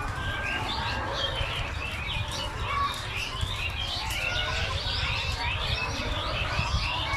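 A large flock of chickens calling all at once in a poultry house: a dense, continuous chorus of many overlapping high chirps and squawks over a low rumble.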